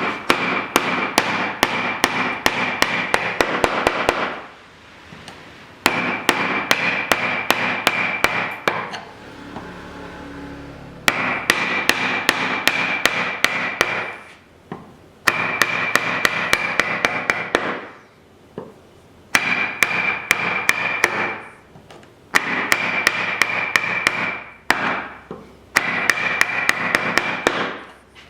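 Hand tools cutting a wooden lap joint: about seven bouts of rapid, regular strikes with a ringing metallic edge, each bout lasting a few seconds with short pauses between.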